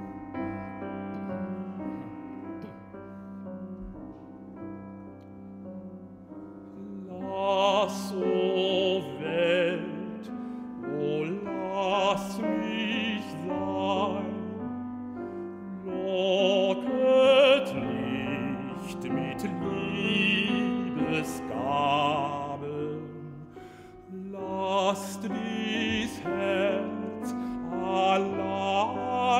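Classical baritone singing a German art song with piano accompaniment. The piano plays softly alone for the first seven seconds or so, then the voice enters with a wide vibrato over the piano.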